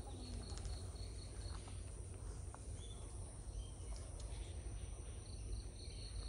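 Insects chirping in rows of short, evenly repeated pulses, fading out in the middle and returning near the end, over a steady low rumble.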